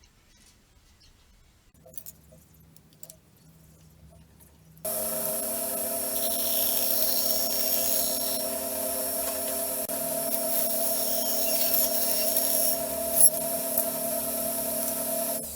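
A woodworking power tool is switched on about five seconds in and runs steadily with a constant hum and hiss, then is switched off near the end and winds down. Before it starts there are a few faint clicks of handling.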